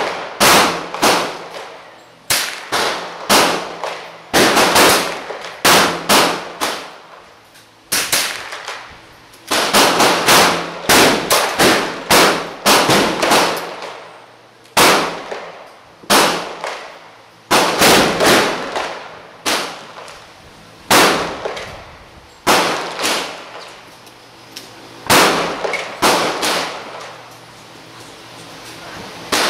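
Gunshots on a covered firing line: dozens of sharp shots in quick, uneven succession, some in rapid pairs, each followed by a short echo.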